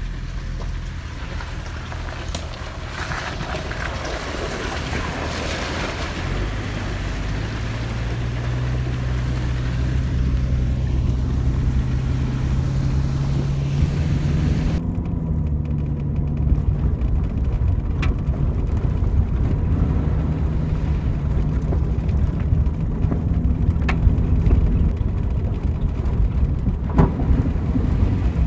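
Jeep Cherokee XJ engine running through a water crossing, with water rushing and splashing; the engine note climbs steadily as it accelerates in the first half. About halfway the sound suddenly turns duller, with a few sharp taps over the running engine.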